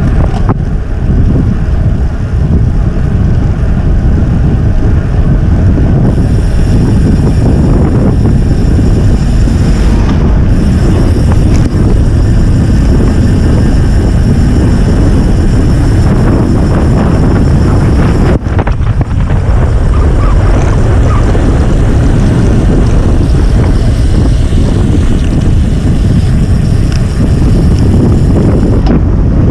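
Loud, steady wind buffeting on the microphone of a camera riding along on a moving road bike, with a brief lull about 18 seconds in.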